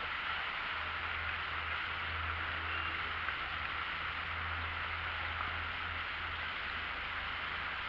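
Steady background hiss with a low, wavering rumble underneath; no distinct event stands out.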